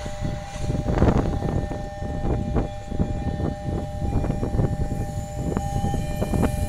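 A passenger train's wheels clattering in an uneven run of clacks over the rail joints as the coaches pass, over a level-crossing warning siren holding two steady tones.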